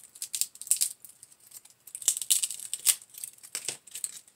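A dry pine cone being handled and broken apart by hand, its woody scales giving an irregular run of sharp clicks and crackles, a few louder snaps about two and three seconds in.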